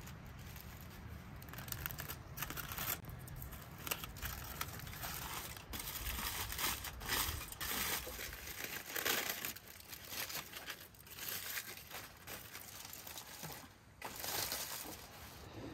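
Aluminium foil crinkling and rustling in irregular bursts as it is peeled open and pulled away by hand, starting about a second and a half in.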